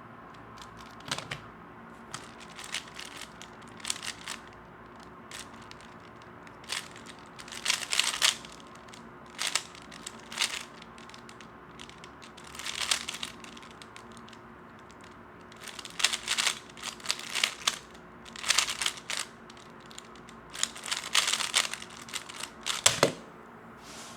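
Plastic 3x3 speedcube being turned fast, in spells of rapid clicking and rattling separated by short pauses. A faint steady hum runs underneath.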